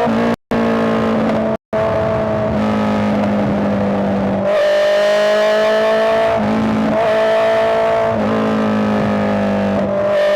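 Honda CBR650R's inline-four engine running while being ridden, its pitch rising gently and stepping several times as the revs change. The sound cuts out completely twice, briefly, near the start.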